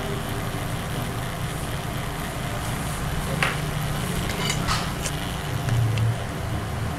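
Hot-air rework station blowing over a phone circuit board: a steady low hum and rush of air, with a few small clicks about three and a half and four and a half seconds in.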